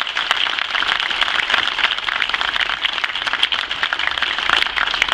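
Crowd applauding, a steady spread of many hands clapping.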